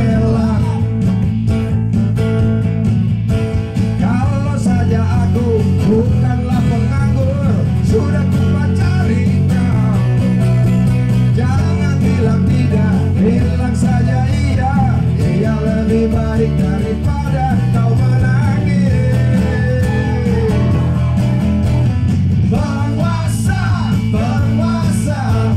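Live band music: a man singing into a microphone over acoustic guitar and keyboard, played through a PA.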